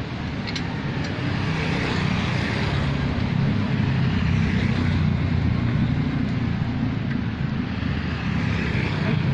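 Low, steady rumble of a motor vehicle running, growing a little louder about a second and a half in.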